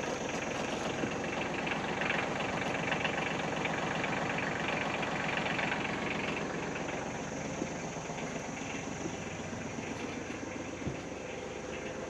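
A small engine idling steadily with an even, fast firing beat, growing a little fainter in the second half.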